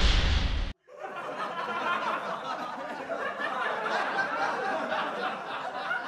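A loud burst of noise cuts off sharply under a second in, then a crowd laughing, many voices at once, continues steadily: a laugh-track sound effect.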